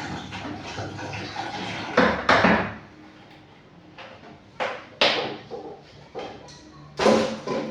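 About five sharp knocks and clatters, as containers and bottles are set down and handled while concentrated bleach is diluted; faint background music runs under the first couple of seconds.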